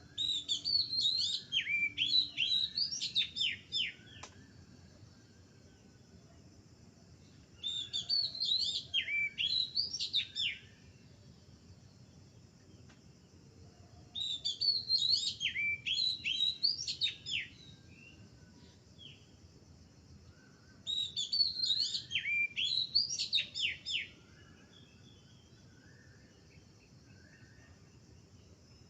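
A small bird singing in four separate bursts, each a rapid run of high chirps and down-slurred whistled notes lasting about three to four seconds, with a few seconds of quiet between them. Fainter, lower short notes sound in the gaps.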